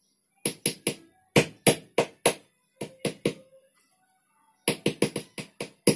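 A small microphone capsule being tapped with the fingers and played back loud through the amplifier: quick, irregular sharp knocks in two runs with a pause of about a second midway. The taps are a test showing the newly wired mic circuit picks up sound.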